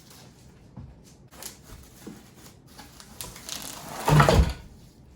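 Chair parts being handled and pulled from a cardboard box: light rustles and knocks, then a louder scraping thud about four seconds in, lasting about half a second.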